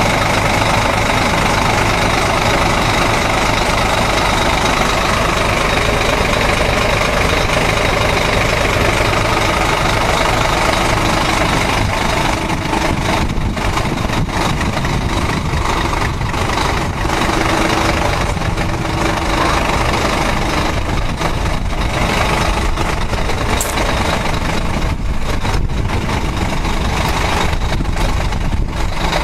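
Ford Ranger pickup driving along a dirt road, heard from inside the cab: steady engine and tyre noise, with irregular knocks from the rough surface starting about halfway through.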